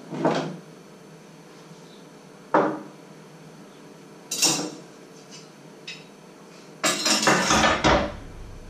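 Kitchen items being handled and set down on a wooden counter: three separate knocks and clinks, then a longer clatter near the end.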